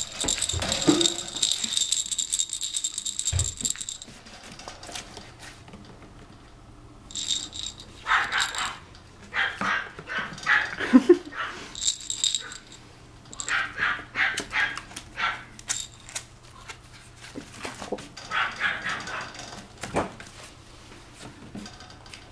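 A toy rattle shaken fast for the first few seconds, then a young puppy's small yaps in short bursts every second or two.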